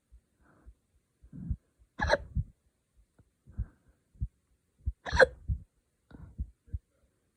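A person hiccuping: two loud, sharp hiccups about three seconds apart, with fainter short sounds between them. The hiccups were brought on by drinking wine too fast.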